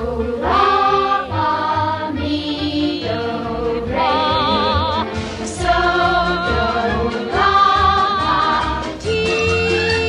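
A group of voices singing a song with accompaniment, ending on a long held note that starts about nine seconds in.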